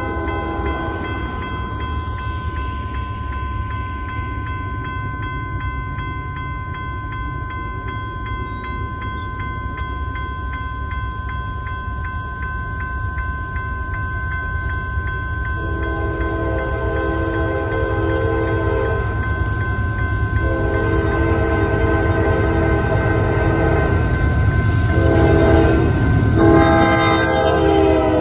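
Nathan K5LA chime horn on an approaching Norfolk Southern diesel locomotive sounding the grade-crossing signal: long, long, short, long, starting about halfway through; the end of an earlier blast fades about a second in. Under it the locomotive's diesel rumble grows louder as it nears, and the grade-crossing bell rings steadily.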